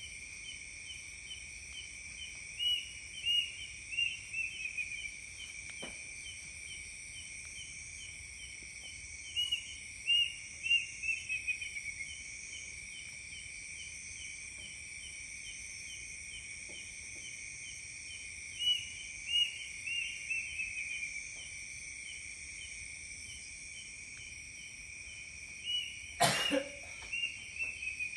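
A bird repeats a call phrase four times, about eight seconds apart: a few loud notes, then a quick run of notes falling in pitch. Steady high insect chirring runs underneath, and a sharp click sounds near the end.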